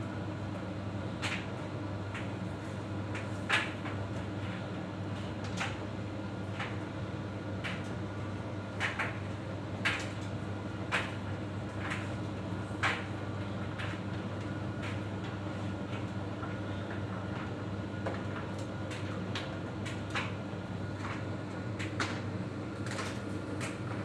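Samsung tumble dryer running: a steady motor and fan hum, with irregular light knocks and clicks, about one a second, as the laundry tumbles in the turning drum.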